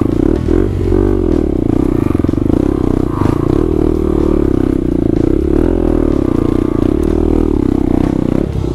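Dirt bike engine running at low speed, heard from on the bike, with small throttle blips every second or two as it picks its way over a rough forest trail.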